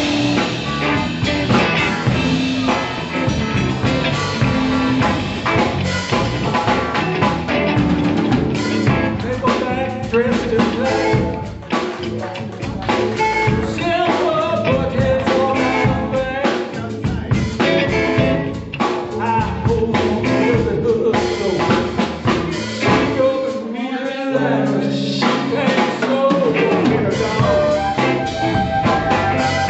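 Live blues band playing: electric guitars, electric bass, keyboard and drum kit.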